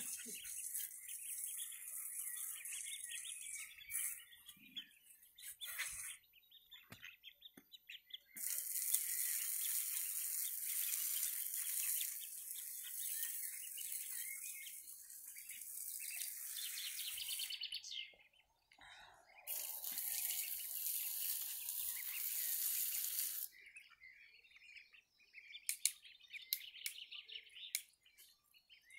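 Mallard ducklings peeping in quick repeated bursts, over a high hiss that cuts in and out in long stretches.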